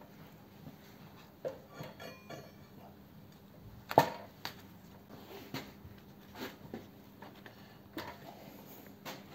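A heavy flywheel with its toothed ring gear being handled and set down on bathroom scales: scattered metal clinks and knocks, the sharpest about four seconds in.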